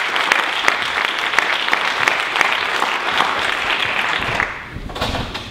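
An auditorium audience applauding, a dense patter of many hands clapping that dies away about four and a half seconds in.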